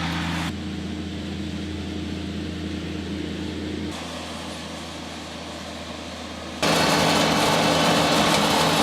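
A vehicle's engine running steadily with a low hum, broken by abrupt changes partway through. About two-thirds of the way in it turns suddenly louder and rougher.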